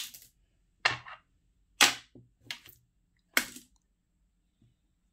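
Small stones clicking against each other as pebbles are handled and picked through: about five sharp stone-on-stone knocks, the last one about three and a half seconds in.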